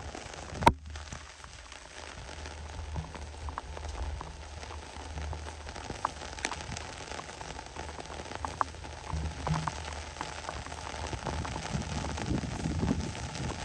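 Rain falling on a grass prairie: a steady patter with scattered drops tapping close by, and one sharp tap about a second in.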